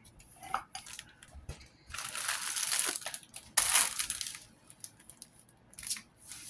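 Plastic packaging crinkling and rustling as it is handled, in several short bursts with small clicks between, the longest about two seconds in and a sharp one just past the middle.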